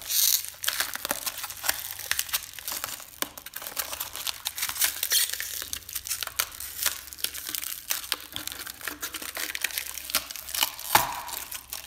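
Clear plastic packaging crinkling and a white foam wrap rubbing and crunching as they are pulled by hand off a stainless steel donut cutter. The sound comes as irregular crackles and rustles.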